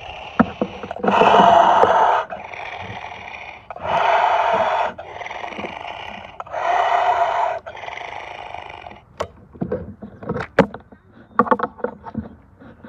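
Electronic toy dinosaur playing recorded roars through its small built-in speaker: three loud roars about a second each with quieter growling between them. After about nine seconds there are only scattered clicks and knocks of the plastic toy being handled.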